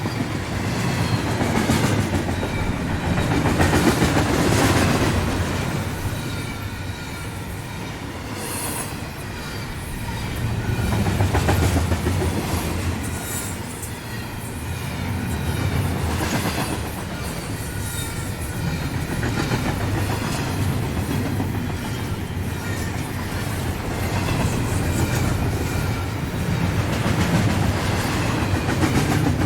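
Train running on the rails, its wheels clacking over the track with a steady rumble that swells and eases every few seconds.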